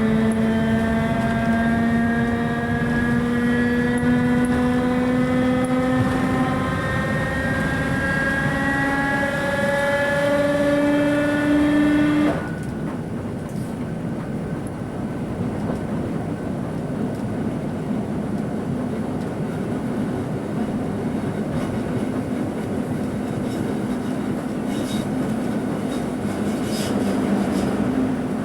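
Whine of an old, worn English Electric traction motor on a 2EPB electric multiple unit, rising slowly in pitch in small steps as the train accelerates under power. About twelve seconds in the whine cuts off suddenly, leaving the steady rumble of the train running along the rails.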